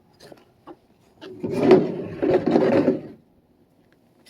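Hard plastic tool case being handled: a few light clicks, then about two seconds of scraping and rubbing as it is moved across a surface.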